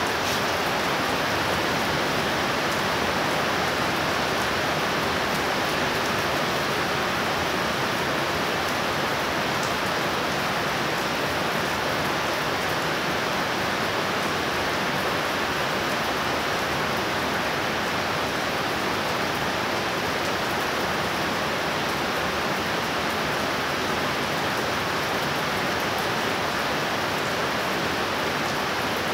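Rain falling steadily, an even hiss that neither builds nor fades.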